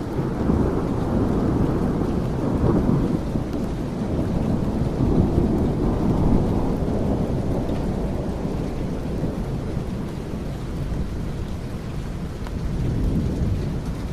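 Steady rain with a long low rumble of thunder that rolls through the first half and slowly dies away.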